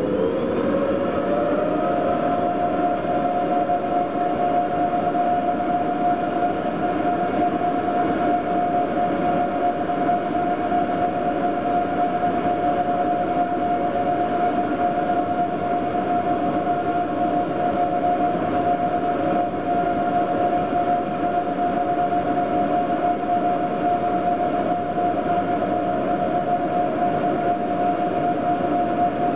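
Freight wagon rolling slowly on the rails, heard right beside its wheels. Under a steady rumble runs a sustained high-pitched whine that rises in pitch over the first couple of seconds and then holds.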